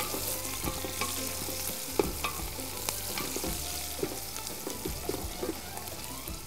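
Sliced onions sizzling in oil in a metal pot, stirred with a wooden spoon that scrapes and knocks against the pot. The onions are still pale, being sautéed at the start of a stew.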